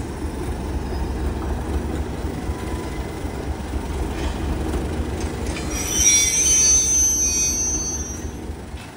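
Class 37 diesel locomotive's English Electric V12 engine running with a steady low rumble as the train moves slowly on the rails. About six seconds in, the wheels squeal with high tones for a couple of seconds, the loudest sound here.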